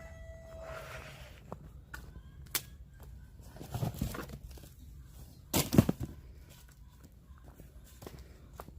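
Scattered knocks and rattles, as of something being handled, with the loudest cluster about five and a half seconds in.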